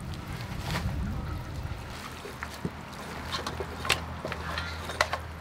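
Wet squelching of marinated chicken pieces being squeezed and kneaded by gloved hands in a stainless steel bowl, with a couple of sharp clicks in the second half, over a low steady rumble.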